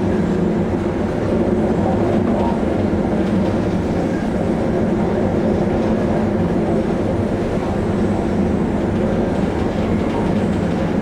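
Steady drone of a ship's engines and machinery heard on board, a low hum with several held tones that does not change.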